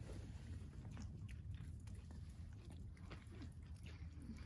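Faint scattered clicks and ticks over a low steady rumble.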